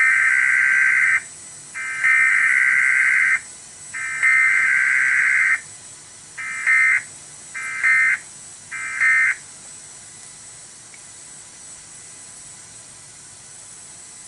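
EAS/SAME digital alert data from a NOAA Weather Radio receiver: three long, buzzy data bursts about two seconds apart, then three short end-of-message bursts, the sequence of a Required Weekly Test sent with no attention tone. After that, only steady radio hiss.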